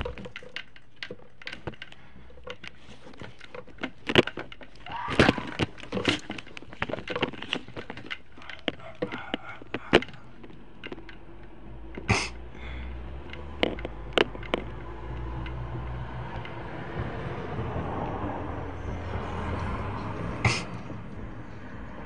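Scattered clicks and knocks over the first two-thirds, with a few louder short sharp sounds among them. A vehicle passes on the street in the second half, its low rumble swelling and then easing near the end.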